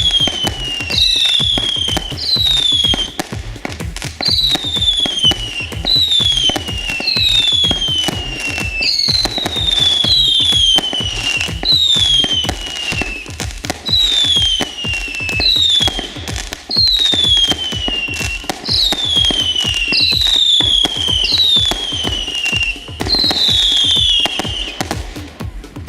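WECO fireworks battery firing a long run of whistling shots, about eighteen whistles, each falling in pitch over about a second, amid steady crackling and bangs.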